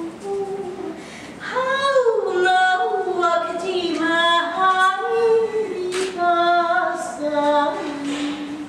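A woman singing unaccompanied without words, holding notes and sliding between them, swelling louder about a second and a half in and easing off near the end.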